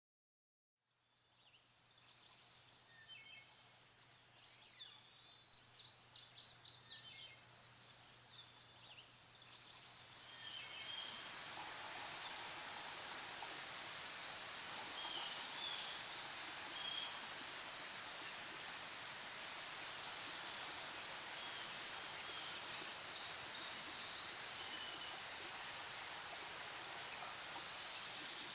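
Songbirds calling in a spring forest, loudest as a rapid series of high notes about six to eight seconds in. From about ten seconds in, a steady rush of running water carries on under scattered high bird calls.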